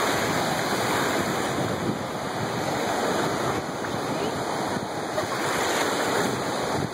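Ocean surf breaking and washing through shallow water at the shoreline: a steady rushing noise.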